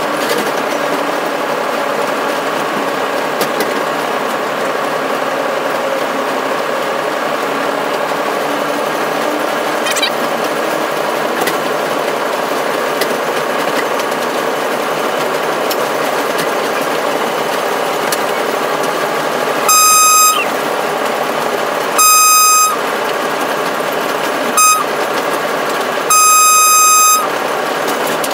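Steady running noise of a locomotive heard from inside its cab. Near the end the locomotive horn sounds four times, long, long, short, long, the standard grade-crossing warning signal, louder than everything else.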